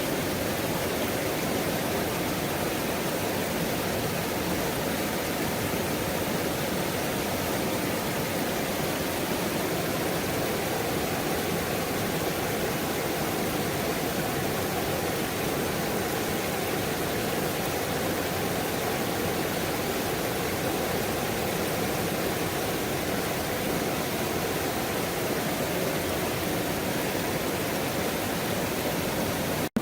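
Waterfall, falling water rushing at a steady, even level.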